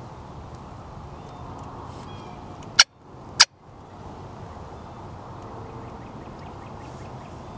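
Two sharp, loud clicks a little over half a second apart, over a steady outdoor background with faint songbird chirps.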